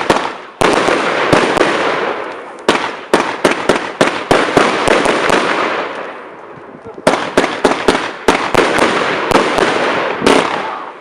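Fireworks going off in rapid volleys of sharp bangs with dense crackling between them, in several bursts with a short lull about six seconds in.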